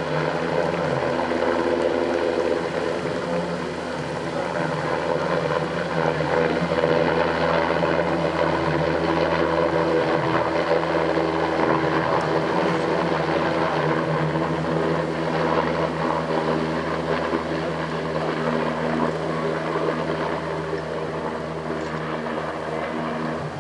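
NHIndustries NH90 military helicopter flying a display pass: main rotor and turbine engines running steadily, with several steady tones. Loudest about a third of the way in, then fading a little as it draws away near the end.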